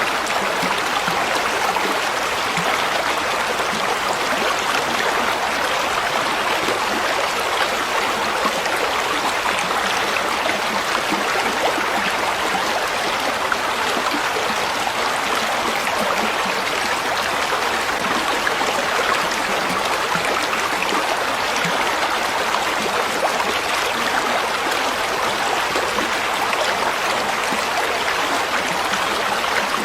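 Flowing water, a steady, even rush like a stream running over stones, with no change in level.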